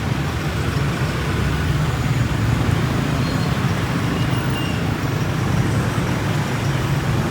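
Street traffic noise: the steady low rumble of vehicle engines on the road, with no single event standing out.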